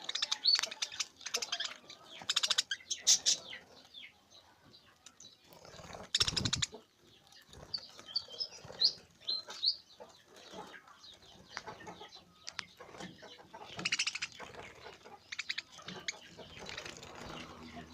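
Budgies chirping and chattering in short, high bursts, with scattered clicks and a loud brief burst of noise about six seconds in.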